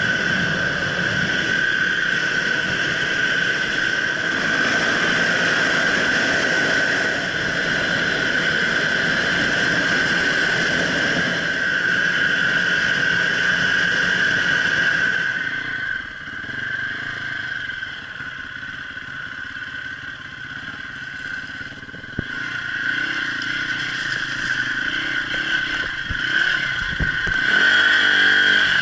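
Enduro motorcycle engine running under way, heard from the rider's helmet, with a steady high-pitched whine over it. It quietens about halfway through, and it picks up again toward the end, with one sharp knock just before it does.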